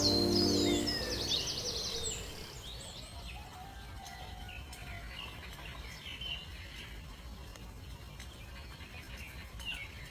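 Background music fading out over the first second or two, then faint, scattered high bird chirps and twitters.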